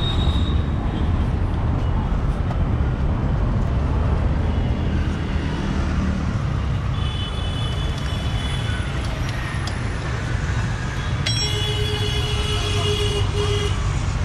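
Steady low rumble of road traffic, with a high drawn-out squeal about halfway through. Another longer squeal with a lower tone under it comes near the end.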